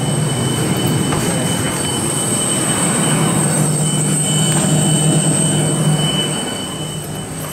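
Steady high-pitched whine over a low hum and rumble from airliner ground machinery, heard from the jet bridge beside the aircraft. The hum swells in the middle and eases off near the end.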